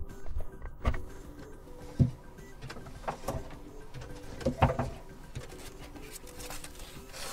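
A keyboard's cardboard box and packaging being handled and opened: a series of short knocks, scrapes and rustles, the loudest about two seconds in and again just before the middle, over faint background music.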